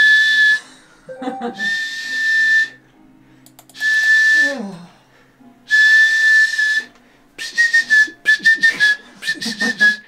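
A man whistling an imitation of a bird: four steady, high whistled notes of about a second each, then a quick run of short chirping whistles near the end.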